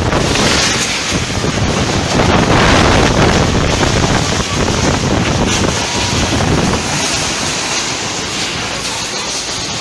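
Storm-force wind blasting the microphone in a loud, continuous rush, strongest about two to three seconds in and easing slightly after.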